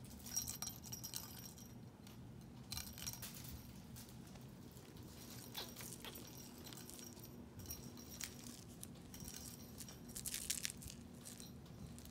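Small bell inside a plastic cat toy ball jingling in short bursts every few seconds as a kitten bats it about, over a faint steady hum.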